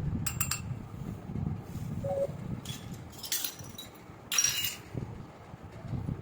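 Small toy pieces being handled: three short clusters of clicks and clatters over a low rumble, with a brief tone partway through.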